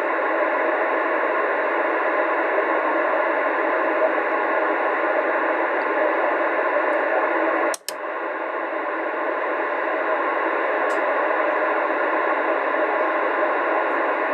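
Radio Shack DX-394 communications receiver playing steady band noise through its speaker, a static hiss cut off below the lows and above the highs. About eight seconds in, a sharp click breaks the hiss for a moment.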